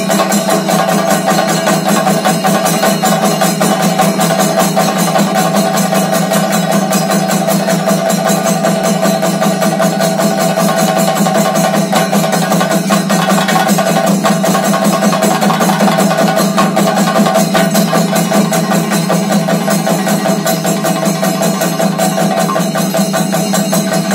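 Double thayambaka: two lead chendas (Kerala cylindrical drums) beaten with sticks in fast, dense rolls, over the ensemble's accompanying chendas and ilathalam hand cymbals. The drumming keeps an even, steady level without a pause.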